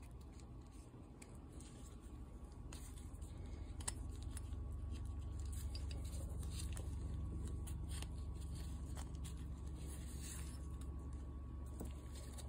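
Light handling noises: scattered clicks and short scrapes of small metal parts being picked up and moved, over a steady low hum that grows louder about four seconds in.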